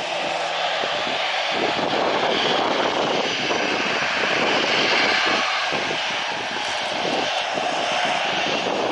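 Jet airliner coming in low to land: a loud, steady rush of jet engine noise.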